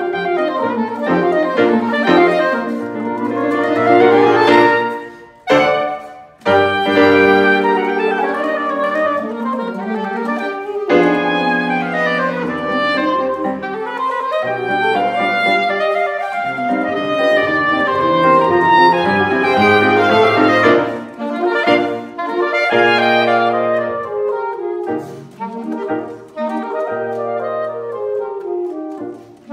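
Soprano and alto saxophones playing a classical duet of fast running and arpeggiated lines over piano accompaniment, with a brief break about six seconds in.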